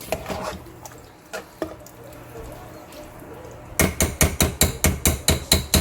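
A metal spoon stirring chicken and water in a pressure cooker: a few soft clicks at first, then from about four seconds in a fast, regular clatter of the spoon knocking against the pot, about five knocks a second.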